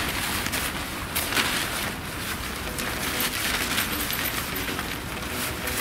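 Oxford 210D polyester tent fabric rustling and flapping in irregular swishes as an umbrella-style ice-fishing tent is collapsed and folded.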